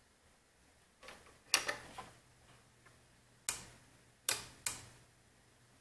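Sharp clicks and taps of wire leads from a 30-volt supply being touched to the terminals of an LCD panel's backlight lamp: a small click, a loud cluster about a second and a half in, then three more a little later, over a faint low hum. There is no sparking: 30 volts is too little to fire the backlight, which the owner reckons needs an inverter.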